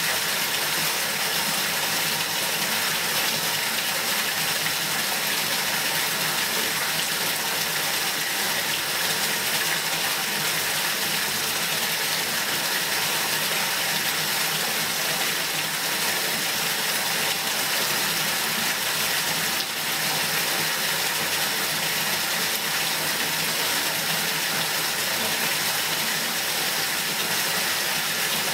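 Bathtub faucet running into a partly filled tub, a steady gushing splash of water into water as the bath fills.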